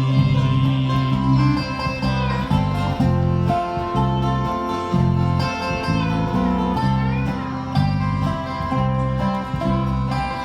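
Instrumental break of a bluegrass-style gospel song played by an acoustic band, with guitar and banjo picking over a steady, rhythmic bass.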